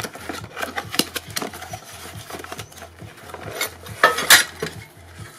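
Hands opening a cardboard box and a plastic bag of small target parts: scattered clicks and rustles with light clinks, and a louder rustle about four seconds in.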